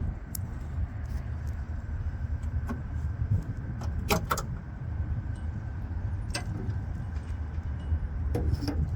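Scattered metallic clicks and knocks from the car's front hood being released, lifted and propped open, with a sharp double click about four seconds in. A steady low rumble runs underneath.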